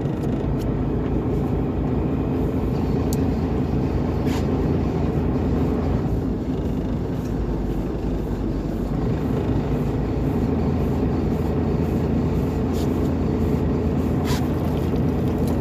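Fishing boat's engine running steadily, a low drone, with a few faint clicks over it.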